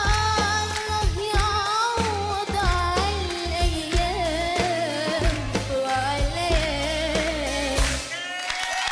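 A woman singing an Arabic pop song over band accompaniment with a steady bass beat. About eight seconds in the beat drops out and she holds a final note.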